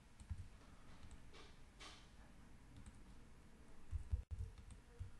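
Faint clicks of a computer mouse and keyboard, with a few soft low thumps about four seconds in.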